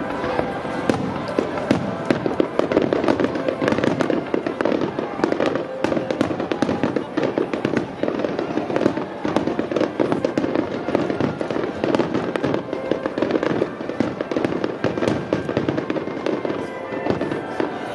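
Aerial fireworks shells bursting in rapid succession, a dense stream of bangs and crackles that thins a little near the end.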